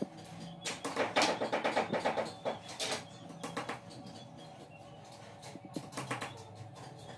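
Hands rubbing quickly over a small shoe part during shoemaking, in fast runs of strokes about eight a second, strongest about one to three seconds in, then lighter scattered scrapes. A faint steady hum runs underneath.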